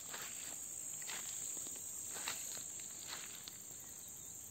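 Steady high-pitched chirring of insects in the grass, with a few soft footsteps on garden soil, about one a second.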